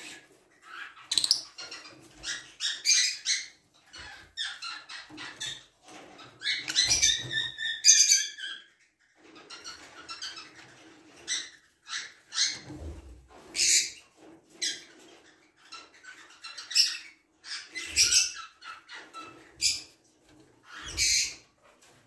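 Lovebirds chirping: short, high-pitched chirps in quick bursts, with a few falling calls about a third of the way in.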